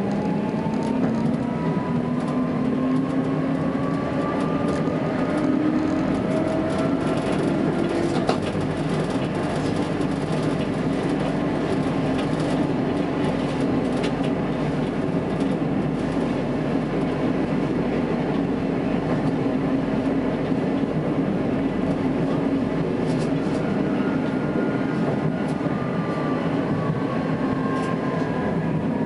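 Tatra T3S tram running on street track, heard from the driver's cab: a steady rolling rumble with the traction motors' whine. The whine rises in pitch as the tram speeds up over the first few seconds, holds, then falls near the end as it slows. A couple of sharp clicks come from the wheels on the rails.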